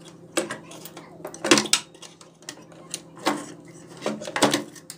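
Scattered light clicks and clatters of hands handling a CRT TV's circuit board and its wires, a few of them sharper knocks.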